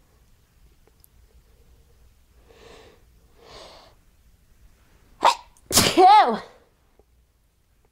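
A woman sneezing during a fit of repeated sneezes: two breathy in-breaths, then a sharp short burst and, about half a second later, a louder voiced sneeze whose pitch falls away.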